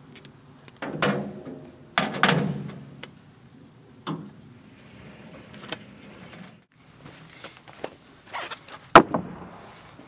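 Wooden knocks and clatter of freshly sawn boards being handled on the bed of a small portable band sawmill. There are loud knocks about a second in and around two seconds, another near four seconds, and the loudest near nine seconds.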